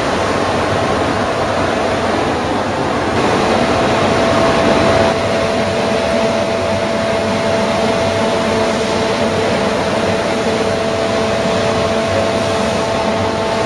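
Webster & Bennett Titan CNC vertical borer running under power: a loud, steady machine hum with a few steady tones that strengthen about three seconds in.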